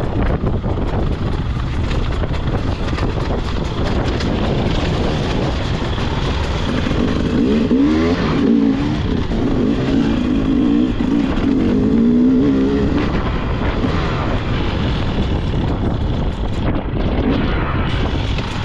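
Off-road motorcycle engine revving up and down as the bike is ridden, over heavy wind rumble on the microphone; the engine note rises and falls most clearly through the middle.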